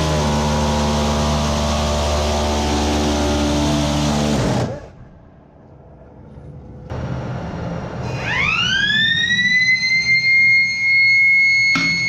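Phalanx CIWS 20 mm Gatling gun firing one long continuous burst, a steady rapid buzz lasting about four and a half seconds before it dies away. A few seconds later a machine whine rises quickly in pitch and settles into a steady high tone, with a couple of knocks near the end.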